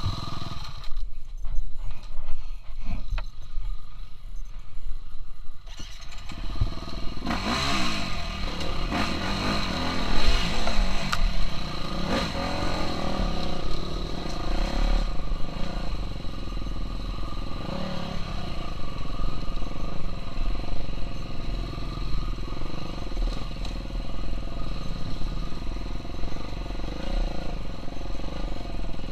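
KTM 350 SX-F motocross bike's single-cylinder four-stroke engine being ridden: low and subdued for the first several seconds, then revving up and down under throttle from about seven seconds in.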